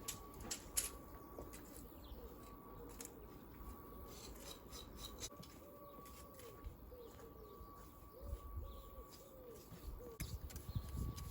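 A pigeon cooing softly, a run of short notes that each rise and fall in pitch, mostly in the middle of the stretch. A couple of sharp clicks come about half a second to a second in.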